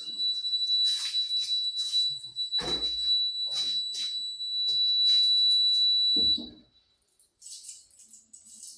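Fire alarm sounder on test, giving one steady high-pitched tone that cuts off about six seconds in. Irregular clicks and a dull knock sound over it, and faint rustling follows.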